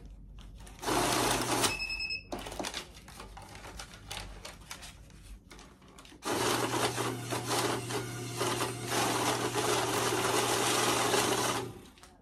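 Electric banknote counter running as it feeds a stack of one-dollar bills: a short run about a second in that stops with a beep, then rustling and clicks as bills are loaded by hand, then a longer steady whir of about five seconds that cuts off sharply near the end.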